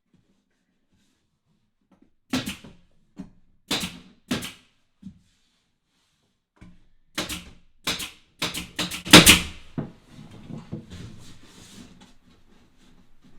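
A series of sharp knocks and taps, about eight in two irregular clusters, the loudest a little after nine seconds in, followed by faint scraping and shuffling.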